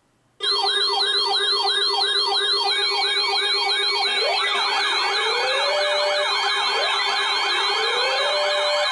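Several electronic sirens sounding together, starting abruptly about half a second in. A fast up-and-down yelp repeats about two to three times a second over steady tones, and a slower rising wail joins about four seconds in.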